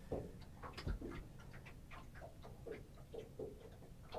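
Fishing reel's clicker ticking faintly and unevenly, a few clicks a second, as a catfish takes line on a bite.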